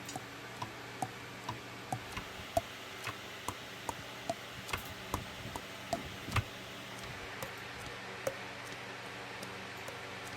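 Soprano saxophone keys being pressed and released, the pads closing with small popping clicks about twice a second, each pop at a slightly different pitch. The clicks thin out after about six seconds.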